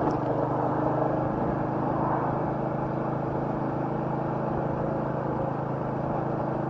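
Royal Enfield Meteor 350's single-cylinder engine running at a steady speed under a constant rush of noise, with no change in revs.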